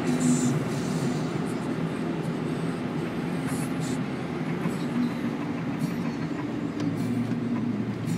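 Steady rumble of engine and tyres from a car cruising at highway speed, heard from inside the cabin.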